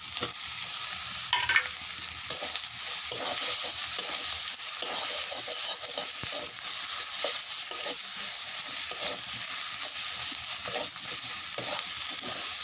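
Onion, spice and tomato masala sizzling in hot oil in a pan, stirred with a spatula that scrapes the pan at irregular intervals: the masala is being fried down (koshano).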